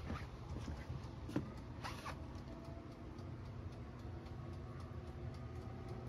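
Light knocks and rustling from a person moving about inside a van while handling a camera, with a few short clicks near the start and about one and two seconds in, over a faint steady hum.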